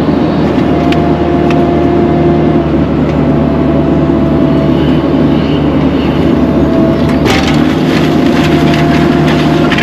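Diesel engine of a Caterpillar 305E2 mini excavator running steadily, with a faint wavering whine. There is a cluster of sharp knocks about seven seconds in.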